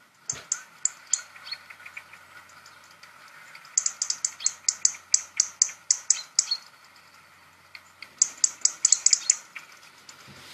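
Recorded song of a European robin played back through a device's speaker: three runs of rapid, very high notes.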